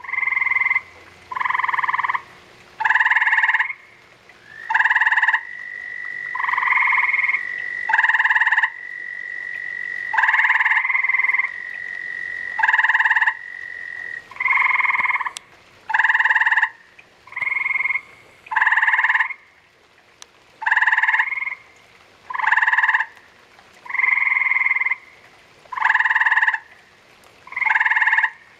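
Gray treefrogs calling: short musical trills of under a second each, repeated about every second and a half. A fainter steady high trill holds underneath from about five seconds in to about halfway.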